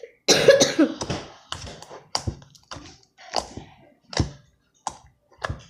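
Hands handling small objects on a table: a short clatter near the start, then about eight sharp taps roughly half a second apart.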